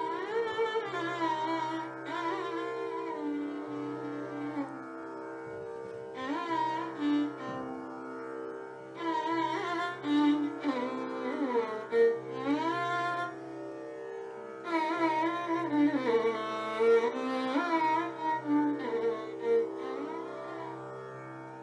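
Carnatic-style instrumental music: a string melody with sliding, ornamented notes over a steady drone.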